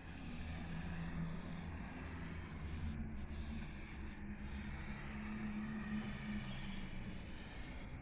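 Metro train running fast through a tunnel, heard from inside the car: a steady rolling noise of wheels on rails with a low hum and hiss.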